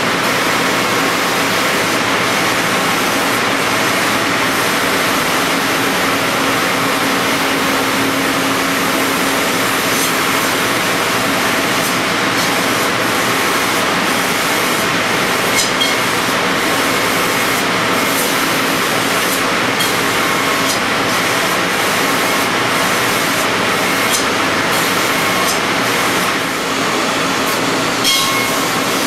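C.R. Onsrud F98HM25 hybrid mill's spindle and cutter milling Ren foam tooling board on a 5-axis toolpath: a loud, steady machining noise with a faint steady hum and scattered short ticks.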